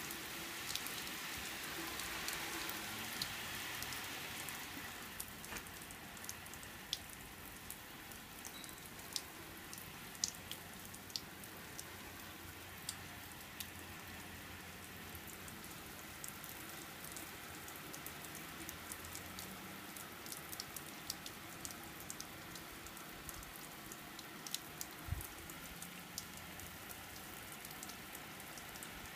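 Garden hose spray pattering on corrugated roof sheeting and a mud-and-bottle wall, like rain: a steady hiss with scattered sharper drip clicks, a little louder for the first few seconds.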